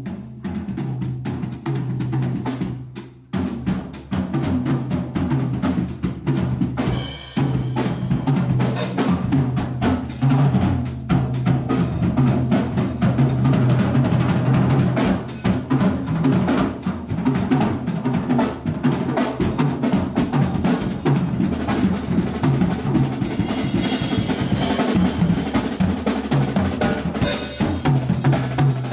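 Band music driven by a busy drum kit of snare, bass drum and cymbals over a sustained low bass line; it dips briefly a few seconds in, then carries on at full level.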